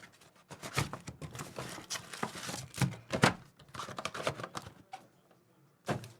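Irregular crinkling, rustling and tearing of trading-card packaging as a mega box is opened by hand, fading out about five seconds in, then a short knock near the end.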